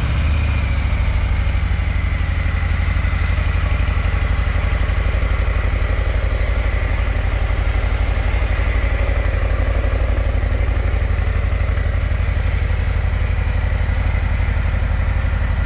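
Harley-Davidson Low Rider S's Milwaukee-Eight 117 V-twin engine idling steadily through its exhaust, with a deep, evenly pulsing note.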